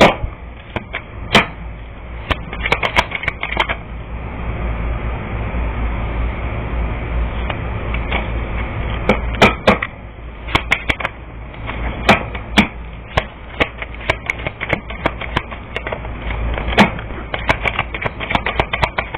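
Irregular sharp clicks and taps, some in quick clusters of several, over a steady low hum.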